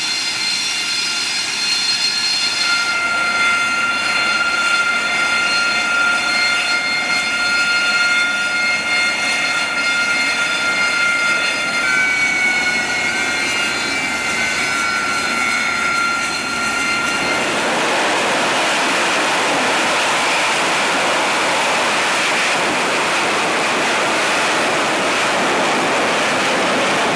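AV-8B Harrier II's Rolls-Royce Pegasus turbofan running, a high whine of several steady tones, one of them sliding up briefly about twelve seconds in. A little over halfway through the whine gives way to an even, louder rush of jet noise, as from a Harrier in the hover.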